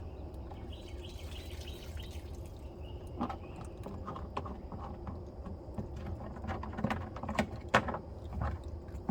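Scattered knocks and clunks of objects being handled, over a steady low rumble; a bird chirps a few times between about one and two and a half seconds in.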